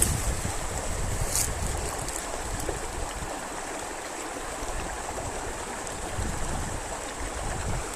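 A small wild river running steadily over rocks, with a low rumble underneath.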